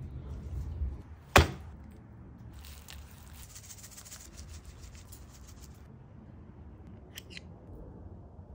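A single sharp knock about a second in, then dry rub being shaken onto a raw brisket, the grains pattering on the meat and wooden board for about three seconds. A couple of light clicks follow near the end.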